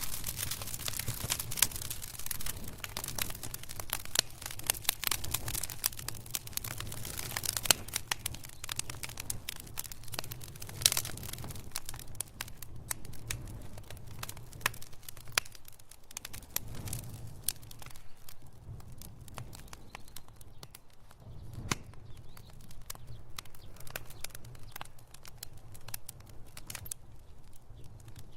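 Wood fire in a fireplace crackling, with rapid irregular snaps and a few louder pops over a low steady rumble. The crackle is densest in the first half.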